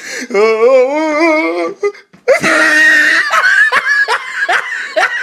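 Loud human laughter: a drawn-out, warbling laugh, then after a short break about two seconds in, a denser burst of laughing with short rising yelps.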